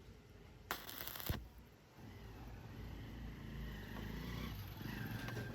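A short, sharp burst of hiss about a second in, then a low, steady motor hum from about two seconds on.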